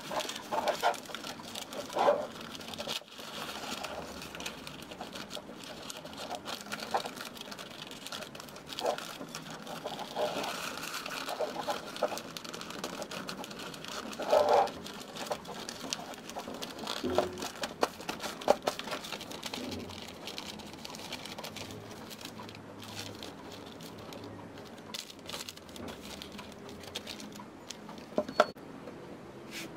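Wrapping paper rustling and crinkling as hands fold and crease it around a canvas painting, with a few sharper, louder rustles along the way.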